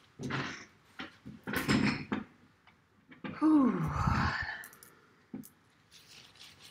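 Rustling and bumps as a woman settles into an office chair, then a long voiced sigh falling in pitch about three and a half seconds in. She is tearful and needing a tissue, and the sigh is an emotional one.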